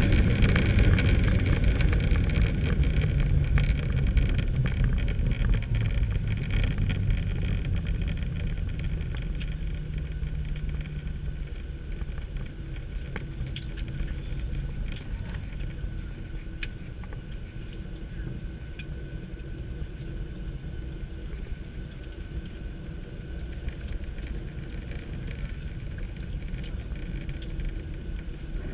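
Inside the cabin of a Boeing 737-800 during its landing rollout. The loud rumble of the engines and runway dies away over the first ten seconds or so as the jet slows, leaving a steadier, quieter cabin hum with a few faint clicks and rattles.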